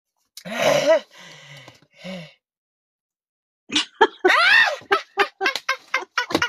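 Hearty laughter: after a short vocal outburst and a pause, it breaks into a rapid run of short laughing pulses, about four to five a second.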